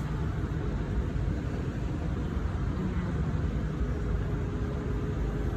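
Wind buffeting an outdoor phone microphone: a steady, uneven low rumble, with a faint steady hum joining about four seconds in.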